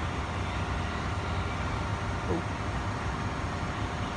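Favretto industrial grinder running with a steady low hum. A brief short squeak sounds about two seconds in.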